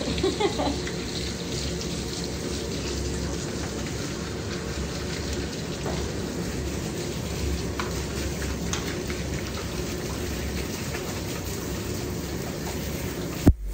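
Handheld shower sprayer running steadily, water hissing onto a wet dog's coat in a stainless steel grooming tub as conditioner is rinsed out. The sound cuts out briefly near the end, just after a short sharp spike.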